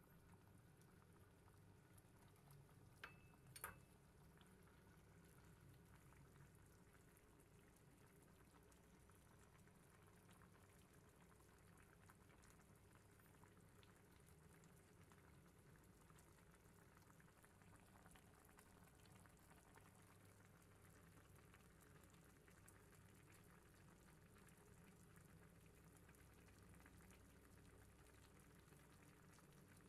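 Faint, steady bubbling of a pot of coconut-milk laksa broth simmering on the stove. Two small sharp clicks sound about three seconds in.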